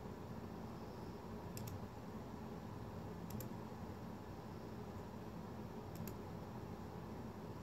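Brass spinning top spinning steadily on a clear concave dish: a faint steady low whirr, with three soft double clicks about one and a half, three and six seconds in.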